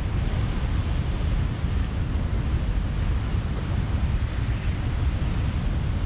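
Stock sound effect of stormy ocean surf and wind: a steady, loud rush with a deep low rumble and no separate crashes.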